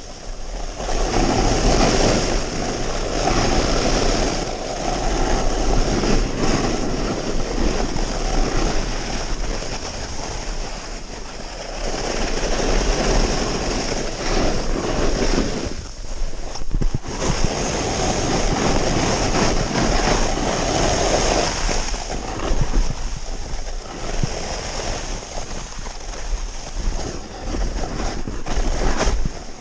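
Snowboard riding fast through snow: the board's edges hissing and scraping through turns under a rush of wind on the camera's microphone. The noise swells in surges several seconds long and drops away briefly about sixteen seconds in.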